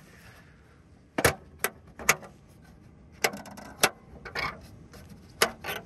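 Tesla Model 3 plastic aero wheel cap being pried at by hand: about six sharp plastic clicks and snaps, with short scraping between them, as its clips catch and rub against the alloy wheel without letting go.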